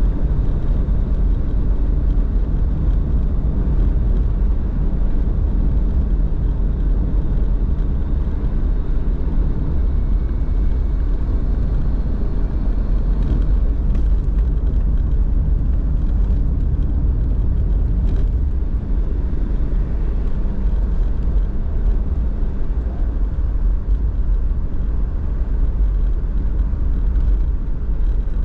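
Car driving along a road: a steady low rumble of engine and tyres that holds even throughout.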